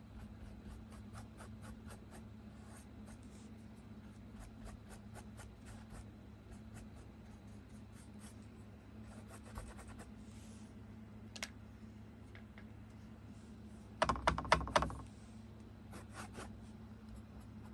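Paintbrush bristles stroking and dabbing on a canvas: a run of soft, scratchy strokes, with a short, louder flurry of taps about fourteen seconds in.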